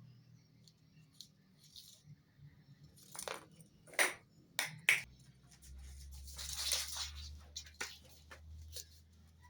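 A kitten playing: several sharp taps and clicks, then a scratchy rustle lasting about a second and a half.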